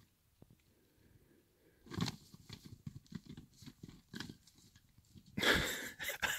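Irregular crunching and rustling in dry grass and brush, starting about two seconds in after near silence, with a louder scraping burst near the end.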